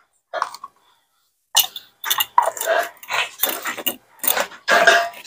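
A dog barking: a rapid run of short barks, about two or three a second, starting about a second and a half in.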